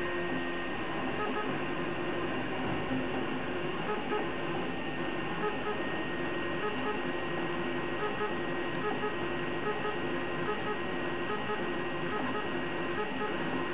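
Prusa i3 3D printer printing: its stepper motors whine in short pitched tones that keep changing as the print head and bed move, over the steady whir of the hotend's cooling fans.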